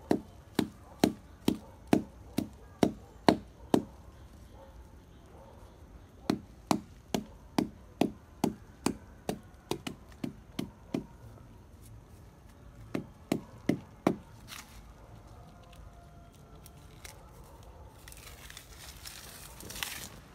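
A sharp stone chopping into the base of a sapling's trunk, hitting wood about twice a second in three runs of blows with short pauses between. Near the end comes a rasping tear as bark is pulled from the trunk.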